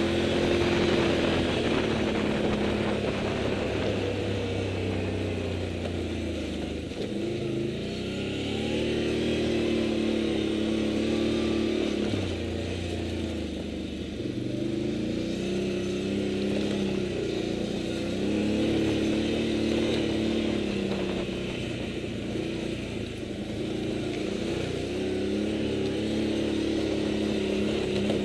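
Motorcycle engine running at low trail speed, its pitch rising and falling again and again as the engine speeds up and slows.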